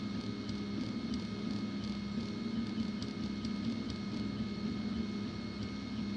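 Mamba3D 3D printer running with its print head over the bed: a steady mechanical hum with thin, steady stepper-motor whines above it and faint light ticks.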